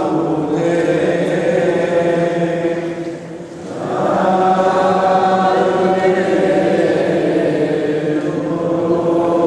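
Voices singing a slow Chaldean Catholic liturgical chant with long held notes; the singing dips briefly about three seconds in, then resumes at full strength.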